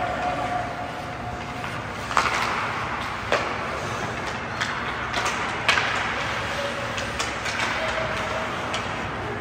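Ice hockey game play: steady rink noise broken by sharp knocks of sticks and puck, the three loudest about two, three and a half, and nearly six seconds in.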